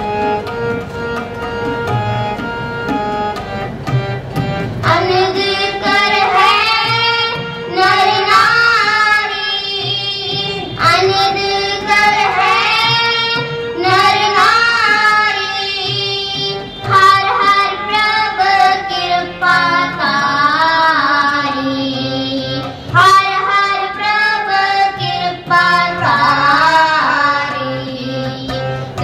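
Gurbani shabad kirtan: a girl and a woman singing an ornamented melody over two harmoniums, with tabla underneath. The opening few seconds are harmonium and tabla alone, and the voices come in about five seconds in.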